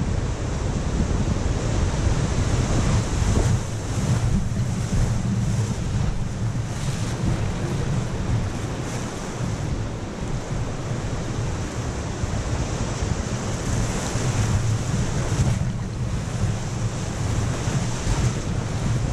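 Whitewater rapids rushing and churning around an inflatable raft, a steady loud wash of water noise with a low rumble on the raft-mounted camera's microphone.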